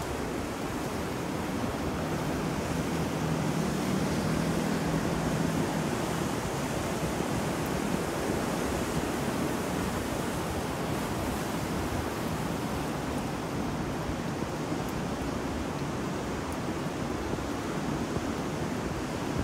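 Ocean waves breaking with wind and rain, a continuous even rushing noise that swells slightly a few seconds in.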